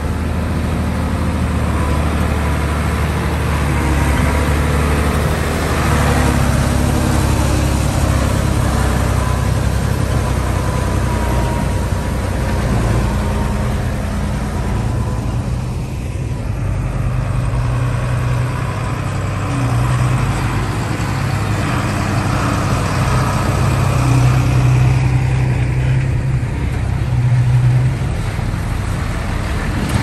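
Diesel engine of a D20P crawler bulldozer running continuously as it works, its low note rising and falling with the load.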